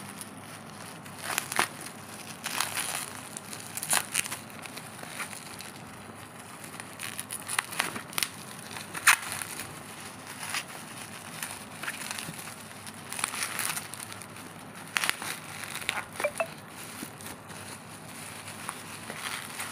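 Clear plastic wrapping around a package crinkling as hands squeeze and turn it, in irregular crackling bursts.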